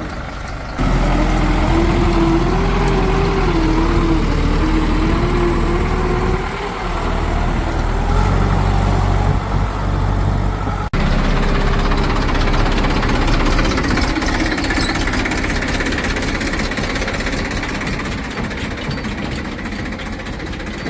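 Diesel engine of heavy farm or construction machinery running steadily, with a wavering whine over it. The sound changes abruptly about a second in and again about halfway through.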